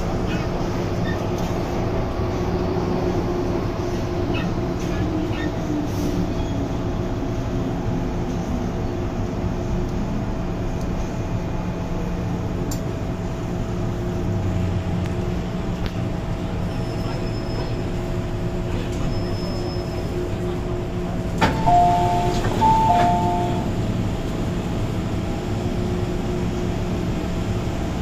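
MTR M-train metro car humming as it comes to a stop, with a low whine that falls in pitch as it slows. After a sharp knock, a two-tone chime sounds twice as the passenger doors open.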